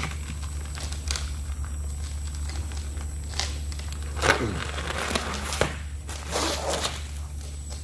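Plastic sleeve crinkling and tearing as a deflated rubber pipe-patch packer is twisted and pulled out of a PVC pipe, in a series of short rustles and scrapes over a steady low hum. The tearing frees the plastic from the cured resin patch.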